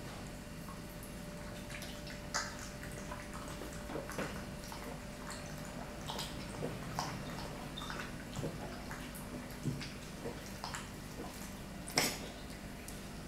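Small dog lapping water from its bowl: irregular wet clicks and slurps, with one louder click near the end.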